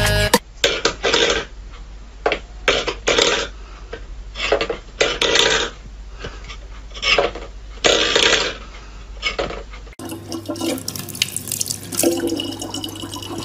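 Stainless steel pet bowls scraping and clattering on a wooden floor in a series of short, irregular bursts. About ten seconds in, a tap starts running, a thin stream of water pouring steadily into a plastic bottle.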